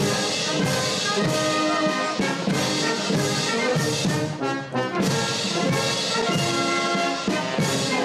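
Brass band music with trumpets and trombones, starting abruptly; a military band playing for the review of an honour guard.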